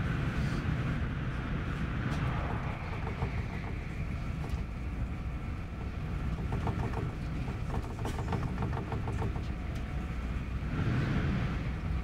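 Inside the carriage of an SJ X2000 train running at speed: a steady low rumble of the train in motion. The rush swells briefly near the end.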